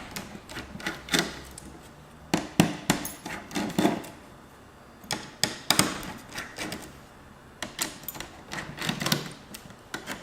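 Irregular clicks, taps and knocks of plastic laptop parts being handled and pried while the trackpad is taken out of an HP G72's top case.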